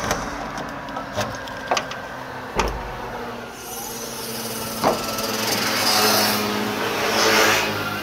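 Several sharp knocks and clunks while the Irisbus Recréo II coach's engine compartment is opened and handled, over a steady low hum. In the second half a hissing rush swells twice.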